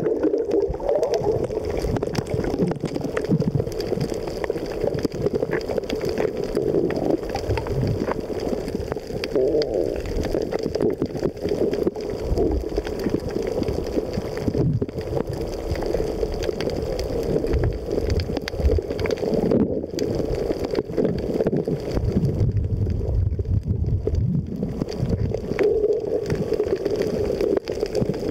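Muffled underwater water noise picked up by a submerged camera: a steady, wavering gurgle and wash of moving water.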